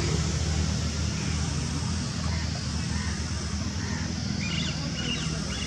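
Small electric RC scale helicopter, a C186 Pro BO-105, buzzing steadily in flight over a low rumble. A few short chirps, bird calls, come near the end.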